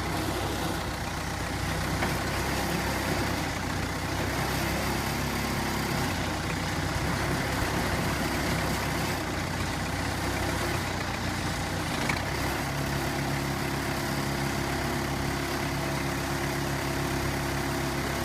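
Case 580 Construction King backhoe's engine running steadily, its note shifting about six seconds in and again about twelve seconds in.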